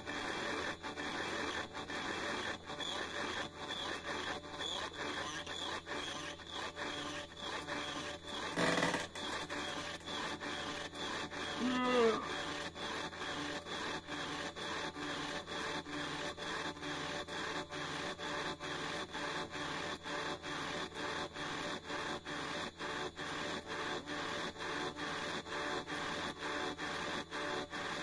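A sampler playing a looped, scratchy lo-fi beat with a steady quick pulse. A louder burst comes about nine seconds in, and a short pitched, bending sample sounds at about twelve seconds.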